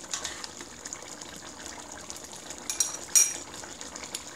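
A metal spoon stirring and scraping in a metal pot of thick sauce, with two sharp metallic clinks close together about three seconds in, the loudest sounds, as the spoon is knocked against the pot and set down.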